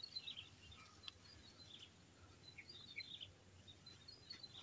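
Faint birdsong: short falling chirps repeated roughly once a second over quiet outdoor background noise.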